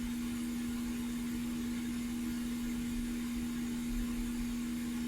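Steady hum and airy hiss of a hot air rework station's blower fan running, with a constant low tone under the rushing air.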